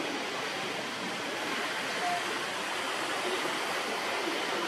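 Steady outdoor rushing noise at an even level, with no distinct events, and a brief faint tone about two seconds in.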